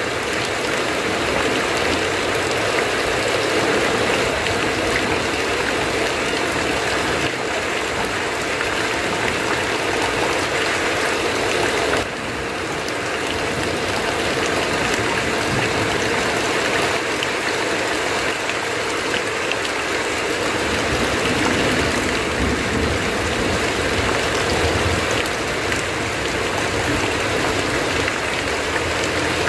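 Heavy rain falling steadily on a tin roof, with water pouring off the roof edge, making a dense, even hiss. The level dips briefly about twelve seconds in, then recovers.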